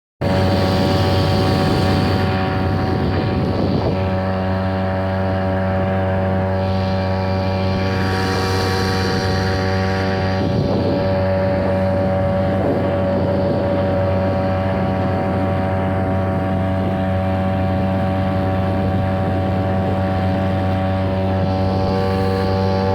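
Small boat's motor running steadily at speed, its note holding constant pitch throughout, with a hiss that swells and fades over it.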